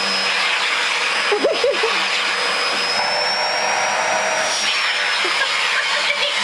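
Vacuum cleaner running steadily, with a high motor whine over a rush of air, as its brush head is drawn through a cat's fur. The whine rises a little in pitch about halfway through, then settles back.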